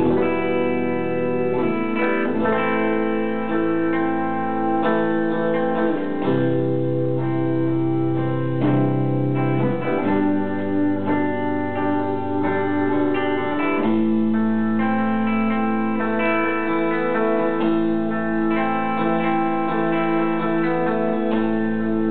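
Ambient electric guitar played through effects pedals and a looper: overlapping sustained notes form a steady drone, the low note changing to a new pitch a few times.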